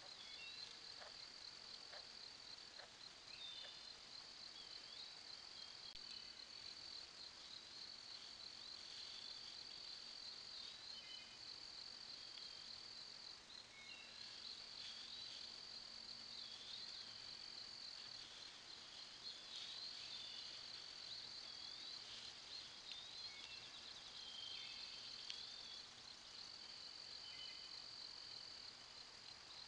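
Faint evening insect chorus: a steady high trill of crickets or katydids, with scattered short bird chirps over it.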